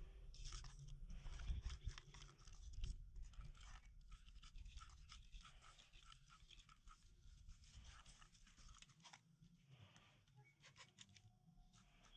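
Faint scratching and clicking of a cat's claws gripping tree bark as it climbs down the trunk, with a few louder bumps in the first three seconds; the scratching thins out after about nine seconds.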